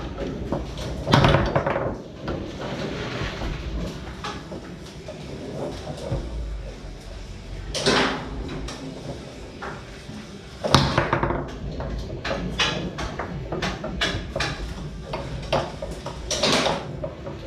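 Knocks and clacks of play on a Tornado foosball table: the ball striking the rod men and the table walls. There are hard hits about a second in, near eight seconds and just before eleven seconds, then a quick run of clacks.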